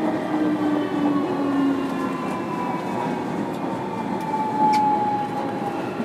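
Onboard running sound of a JR Kyushu 305 series EMU motor car: the VVVF inverter and permanent-magnet traction motors whine in thin tones that fall slowly in pitch as the train slows, over a steady rumble of wheels on rail. A single sharp click sounds about three-quarters of the way through.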